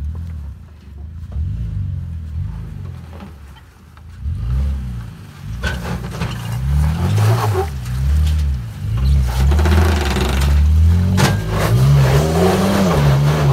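Third-generation Toyota Tacoma's engine working under load as the truck crawls up a rock slab, its pitch rising and falling as the throttle is fed in and eased off. It is quieter at first, then revs harder and louder from about four seconds in.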